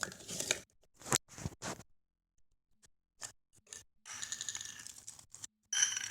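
Short scraping and clicking handling noises, with a longer rapid rattling scrape about four seconds in and a brief squeak near the end.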